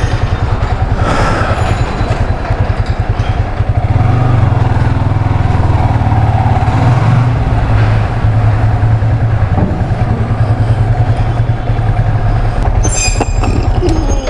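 Motorcycle engine running, with heavy rapid low buffeting that sounds like wind on the microphone.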